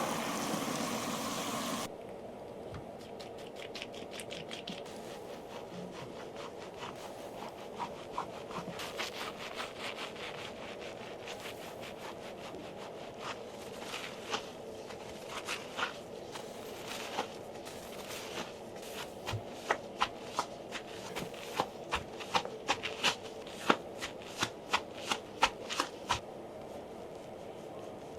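Hands scrubbing and scratching a head of hair during a shampoo: rubbing and scraping with sharp crackling taps that come thicker and louder from about twenty seconds in. A short burst of rushing noise opens it, over a steady low hum.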